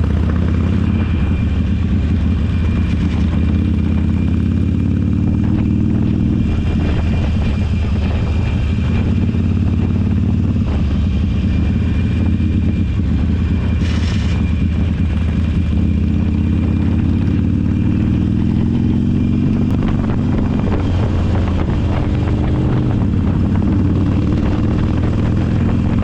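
Motorcycle engine running under way, its note steady but rising and falling several times with throttle and gear changes, with a brief hiss about halfway through.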